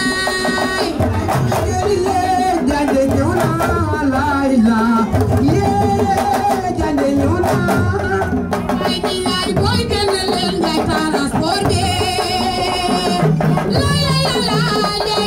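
Live singing into handheld microphones over a group of hand drums playing a steady rhythm.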